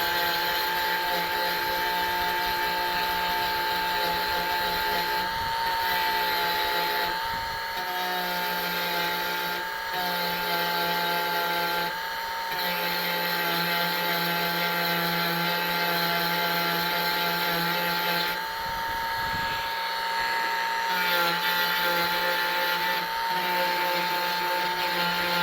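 Dremel rotary tool with a wire brush running at a steady high whine, cleaning blackened plastic weld seams. Its sound changes briefly several times, most clearly about 18 to 20 seconds in.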